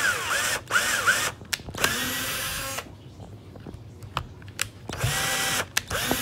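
Power drill run in short bursts as screws are driven into a wooden base. About five runs, the motor whine rising as the trigger is squeezed and falling as it is let go, wavering in the second run, with a long pause in the middle.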